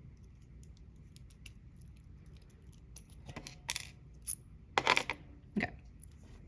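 Small metal lock parts being worked apart with a makeshift tool: scattered light clicks and clinks, with a few louder clusters of clinking about three and a half and five seconds in.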